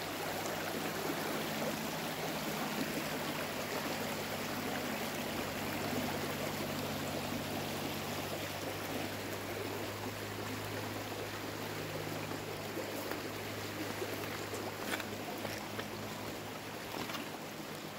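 A shallow, rocky river running over stones and riffles: a steady rush of flowing water.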